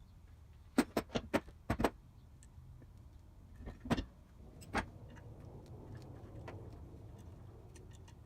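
Sharp knocks and clinks of metal parts being handled: a quick run of about six within a second, then two more a few seconds later, over a low steady hum.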